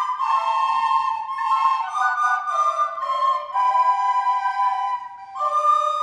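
A group of children playing descant recorders together, a simple tune of held notes stepping between pitches, with a short break between phrases about five seconds in.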